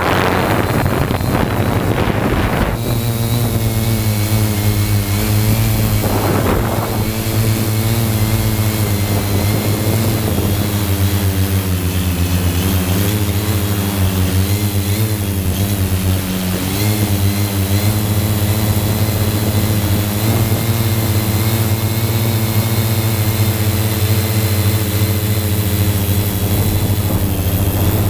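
A 3DR Y6 multirotor's six motors and 15-inch propellers running in flight: a steady drone with a thin high whine, its pitch wavering slightly as the motors change speed. Wind buffets the microphone in the first few seconds and briefly again about six seconds in.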